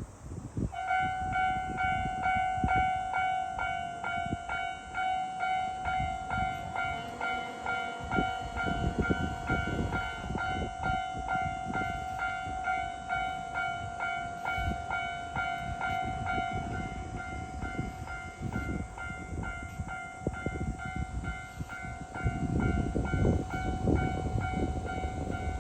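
Japanese level crossing warning bell ringing at a steady rhythm of about two strikes a second, starting about a second in: the crossing is closing for an approaching train. A low rumble builds up near the end.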